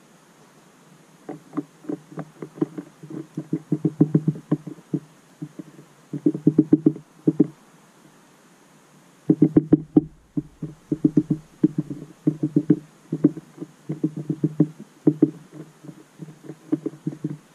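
Rapid knocking and tapping of a small bird's beak on a plastic tube seed feeder as it pecks at the seed, several taps a second in bursts, with two short pauses.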